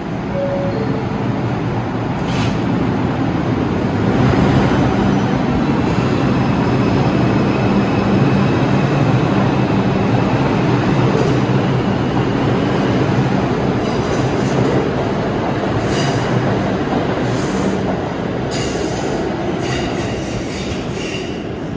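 R142-series New York subway train leaving the station: a two-note falling door chime just after the start, then loud running noise with rail clatter and the hum of the electric motors as it pulls out and passes. Near the end it eases off, and sharp clanks and high wheel squeal come in as another train approaches.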